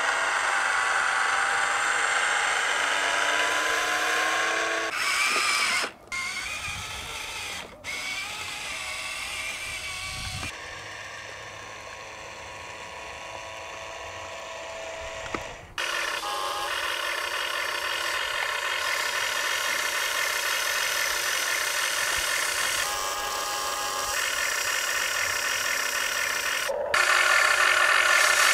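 Small electric motors and gearboxes of Huina radio-controlled construction models, a dump truck and a tracked excavator, whining as they drive and work. The pitch rises and falls, and the sound changes abruptly several times.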